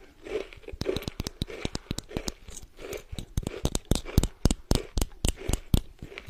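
Close-up chewing of a crunchy crystal candy (kohakutou): a run of irregular sharp crunches and crackles, several a second, with soft wet mouth sounds between them.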